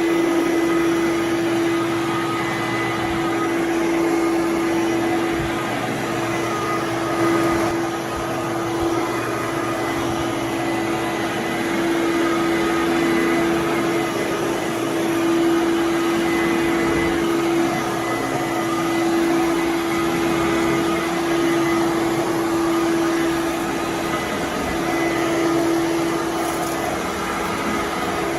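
Fantom Domestic 11-amp vacuum cleaner running steadily while vacuuming, its motor giving a constant whine over the rush of air, with small swells in level as it is worked.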